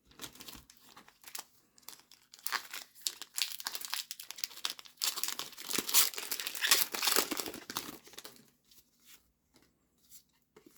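Foil wrapper of a Pokémon TCG Paldea Evolved booster pack crinkling and tearing as it is torn open, the crackle building to its loudest about two-thirds of the way through and then dying away.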